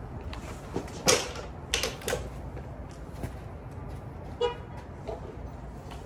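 Low wind rumble on the microphone, with a few sharp clacks as golf clubs knock together in a golf bag while an iron is drawn out; the loudest clack comes about a second in. A brief squeaky tone follows a little after the middle.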